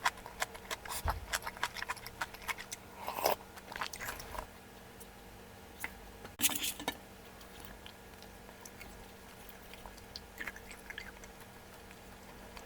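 Close-up mukbang eating sounds of malatang: chewing and biting with many quick clicks in the first few seconds, a louder noisy burst about six and a half seconds in, then only sparse small ticks.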